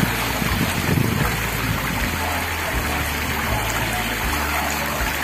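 Water running steadily down the channel of a long open water slide: an even rushing, trickling noise. Wind buffets the microphone in about the first second.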